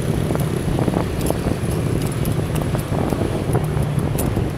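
Steady road-traffic rumble from cars and motorcycles close by, heard from a bicycle riding among them in the traffic, with frequent light clicks throughout.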